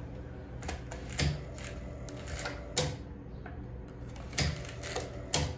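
A string of sharp, irregular clicks, about four loud ones and several fainter ones, over a steady low hum.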